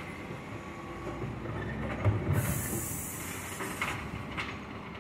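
Bin lorry running with a low rumble. About two seconds in there is a thump, then a sharp hiss of air for about a second and a half, followed by two short knocks.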